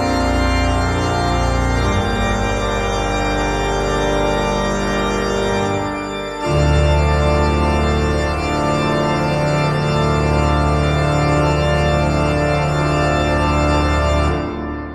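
Organ music playing long sustained chords. The chord changes about two seconds in, then drops to a deeper, louder chord about six and a half seconds in, and the music fades out near the end.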